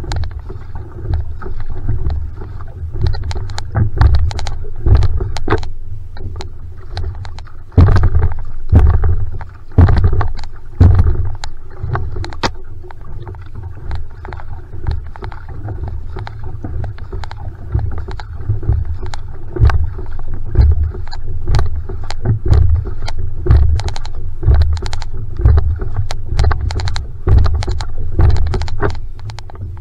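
Single-blade paddle strokes driving a va'a (outrigger canoe): each catch and pull splashes and churns the water, over the rush of water along the hull, in a steady rhythm of about one stroke a second with a heavy low rumble on each stroke.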